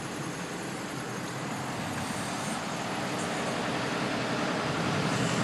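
1991 UD 1200 truck's four-cylinder diesel engine running under way, heard from the cab along with road noise, growing steadily louder.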